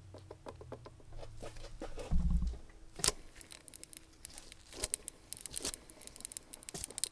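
Worn supercharger pulley bearing on a Mercedes M113K engine clicking and rattling irregularly as the pulley is handled and turned by hand; the bearing has play. A dull thump about two seconds in.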